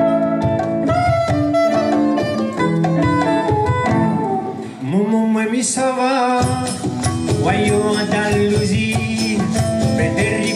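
Live band playing: held saxophone-like notes over a steady beat of hand drums, congas and drum kit, with keyboard and guitar. A voice sings over the band in the second half, after a short dip in the music just before the middle.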